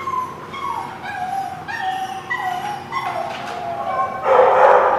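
Small dogs at play, one giving a string of high, wavering whines and yips, then a loud, rough bark about four seconds in.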